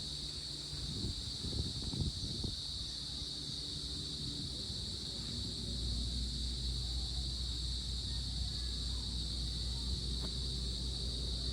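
Crickets chirring in one steady high continuous band, over a low rumble that comes in short gusts early on and turns louder and steady about six seconds in.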